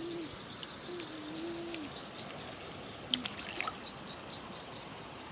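Creek water running steadily. A faint distant voice can be heard early on, and a sharp click comes about three seconds in.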